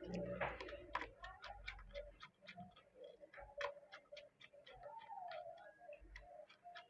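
Irregular small clicks and taps, several a second, of plastic parts being handled as a mini Bluetooth speaker's charging board is fitted back into its casing.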